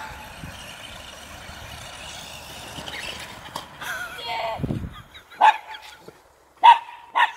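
Dog barking: three short, high barks in the second half, the last two close together.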